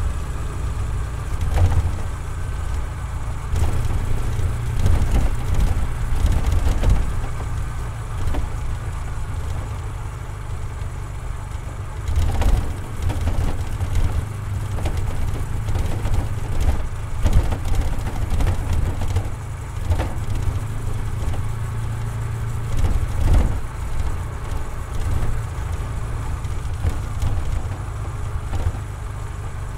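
Honda Super Cub C125's small single-cylinder four-stroke engine and exhaust running as the bike is ridden along a road, picked up by a recorder mounted on the motorcycle, with a deep low rumble and occasional short knocks.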